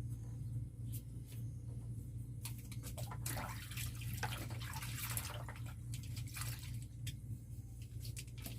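Food items being handled and put back into a refrigerator: a run of light knocks, clicks and rustling in the middle, over a steady low hum.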